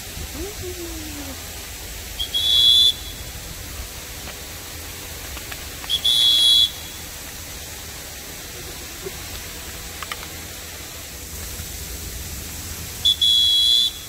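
Three short, high, steady whistle-like tones, each about half a second long, the second about three and a half seconds after the first and the third about seven seconds later. They stand out loudly over a steady low background hiss.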